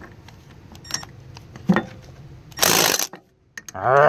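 Cordless impact wrench with a socket extension running in short bursts on a tight bolt of a Cat 933G hydraulic steering valve. There is a loud burst of hammering about two and a half seconds in, then a brief stop, then a rising motor whine near the end as the trigger is pulled again to break the stubborn bolt loose.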